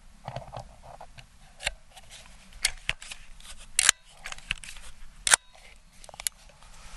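Crosman 1322 multi-pump pneumatic .22 pellet pistol being pumped twice by hand: a string of sharp clicks and clacks from its pump lever, the loudest about four and five seconds in.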